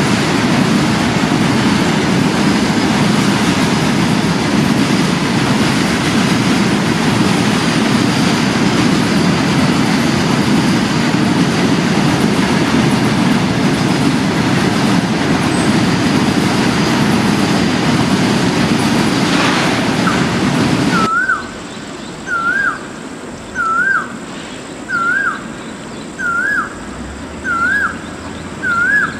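Freight train rolling past, a loud steady rumble of wagons on the track that cuts off suddenly about two-thirds of the way in. After it, an animal's short high cry, rising then dipping, repeats about every second and a quarter.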